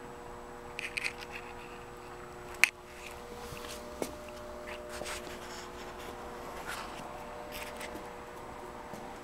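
Handling noise from a handheld camera: scratching, rubbing and a few clicks, the sharpest about two and a half seconds in, over a steady electrical hum.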